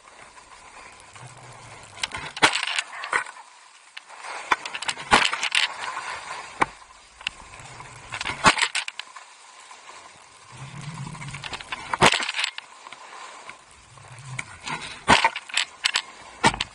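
Skis carving linked turns on packed snow: the edges scrape and hiss in a surge about every three seconds, with sharp clicks and rattles in among them.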